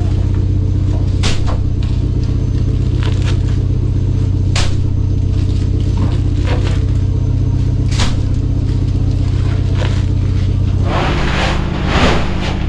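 Steady low drone of the fishing boat's engine, with a few short knocks and scrapes. About eleven seconds in, a basket of crushed ice is tipped out and pours with a rushing, crunching sound onto the fish in the hold.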